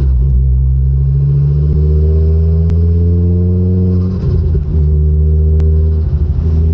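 Ford Focus RS Mk2's turbocharged 2.5-litre five-cylinder engine pulling through a full aftermarket exhaust system while driving. The note rises slowly in pitch for about four seconds, breaks briefly, then settles into a steady drone.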